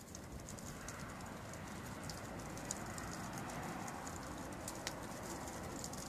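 Wood fire crackling, with irregular sharp pops a few times a second over a steady low hiss.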